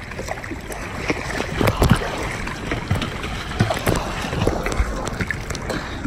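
Sea water sloshing and splashing around a phone held at the waterline, with irregular knocks from the phone being handled and wind on the microphone.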